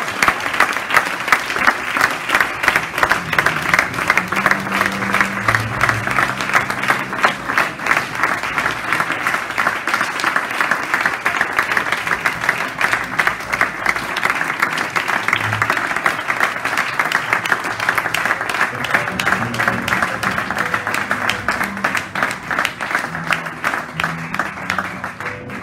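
Sustained applause from a large audience, many people clapping at once, easing off near the end.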